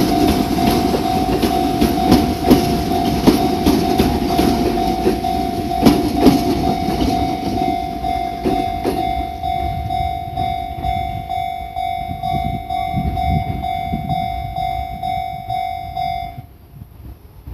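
A train passes over a level crossing, its wheels clacking over the rail joints and rumbling, and the sound fades after about nine seconds as it moves away. Throughout, the crossing's warning bell rings in a steady repeating pulse and stops suddenly about sixteen seconds in.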